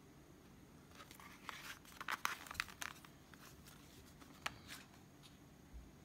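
Cardboard Zippo gift boxes being handled: faint rustling and a scatter of light clicks and taps, busiest about two to three seconds in, with one sharper click a little later.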